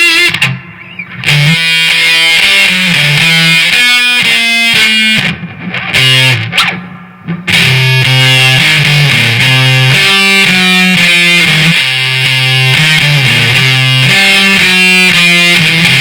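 Heavily distorted electric guitar riffing through a maxed-out fuzz pedal into a Marshall DSL 40C valve amp. In the short pauses between phrases the sound cuts off abruptly instead of hissing on, because a noise gate pedal is switched on and shuts out the amp's noise.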